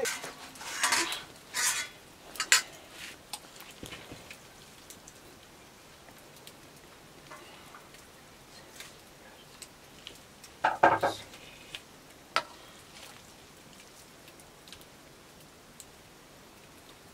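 Cooking sounds: a few scrapes and clatters of a utensil against a pot in the first seconds, another cluster about eleven seconds in, with a faint steady hiss of frying and small clicks between.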